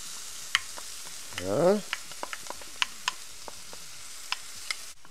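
Sliced mushrooms, yellow bell pepper and freshly added red onion sizzling steadily in a hot cast-iron pan, with a dozen sharp clicks as a spatula stirs them against the iron.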